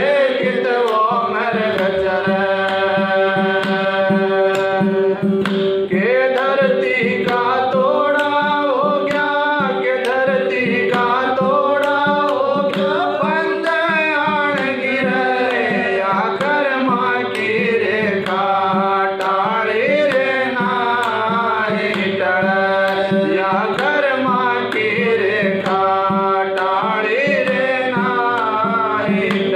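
A man singing a devotional bhajan in a gliding, ornamented melody over a steady held drone.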